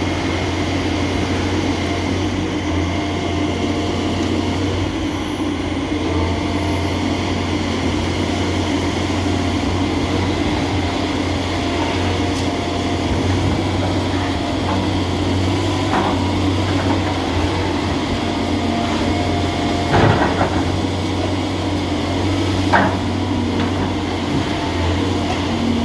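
John Deere 350G excavator's diesel engine running steadily under work, with two sharp knocks near the end.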